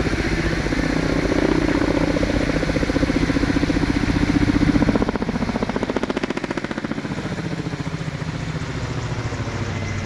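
Firefighting helicopter overhead, its main rotor beating in a fast, even rhythm over the engine's whine; a little quieter after about five seconds as it moves off.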